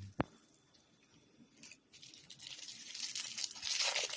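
A sharp click just after the start, then toy packaging being torn open and crinkled, the rustling and tearing getting denser and louder in the second half.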